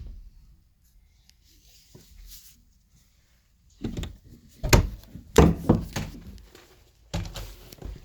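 A single thump, then a quiet stretch, then about halfway through a run of loud thuds and knocks close together.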